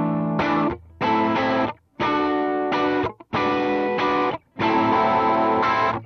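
Electric guitar played through a Demonfx Breaker Drive overdrive pedal, a Marshall Blues Breaker clone, switched on. Overdriven chords are struck about five times, each rung for about a second and then stopped short into a brief silence.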